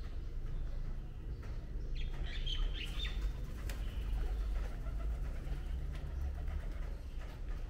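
Birds calling outdoors, with a few short high chirps about two to three seconds in, over a steady low rumble.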